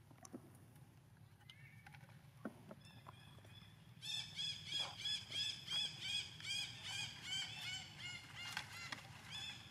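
An animal calling in a rapid series of short, arched calls, about four a second, starting about four seconds in.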